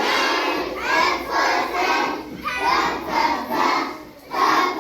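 A group of children chanting a phonics line together in unison, a steady rhythm of syllables.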